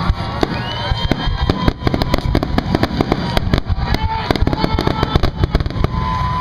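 Rapid barrage of aerial firework shells bursting, many sharp bangs a second with no pauses between them.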